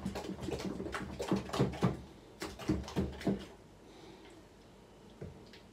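A wooden spoon stirring thick grated cocoyam paste in a plastic bowl: a run of irregular knocks for about three seconds, then quieter.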